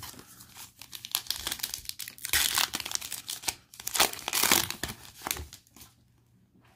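Foil wrapper of a football trading card pack being torn open and crinkled as the cards are pulled out: a run of crackly rustles, loudest about two and a half and four seconds in, that stop about six seconds in.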